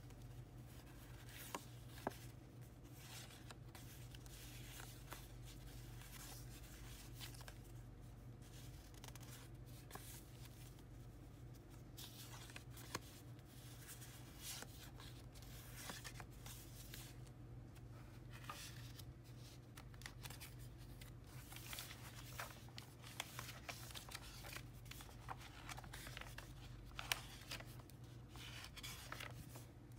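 Faint handling of small paper photo cards, with light rustles and scattered clicks as the cards are shuffled and slid against one another, growing busier in the second half; a steady low hum lies underneath.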